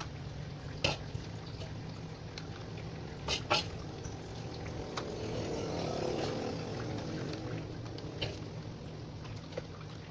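Fried instant noodles being scooped and dropped into foam takeaway boxes: a few sharp taps of a serving utensil and a soft rustling swell in the middle, over a steady low background hum.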